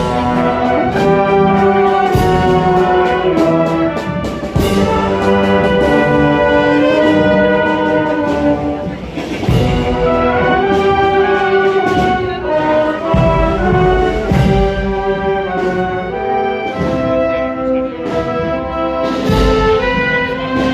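Procession brass band playing a slow march: trumpets and trombones holding sustained chords over regular drum beats.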